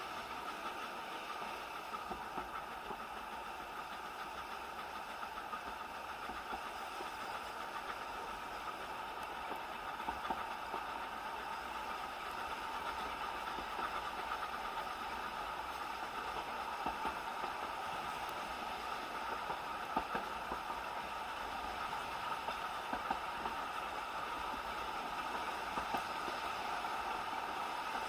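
Passenger carriage of the Isle of Man Steam Railway's 3 ft narrow-gauge train running: a steady rumble and rattle of wheels on rails with scattered sharp clicks, growing a little louder toward the end.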